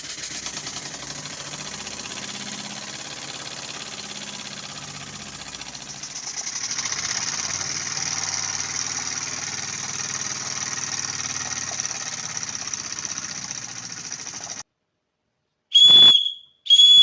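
Homemade steam engine running on steam, a steady rapid hiss that grows louder about six seconds in and then cuts off suddenly. Near the end a steam whistle gives two short, loud, high-pitched toots.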